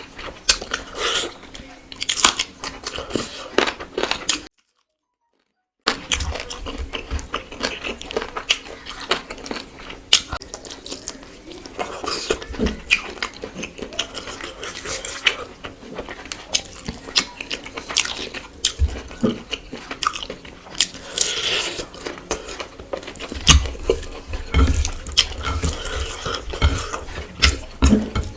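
Close-miked eating sounds: steady chewing with crisp crunches and wet mouth clicks as rice and curry are eaten. The sound drops out completely for about a second and a half, around five seconds in.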